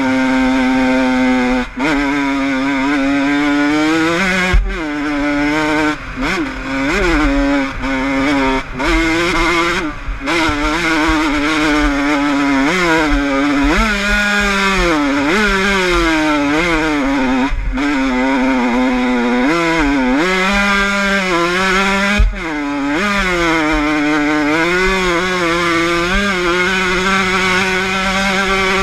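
Honda CR85 two-stroke motocross engine running at high revs, its pitch rising and falling as the throttle is worked, dropping out briefly several times.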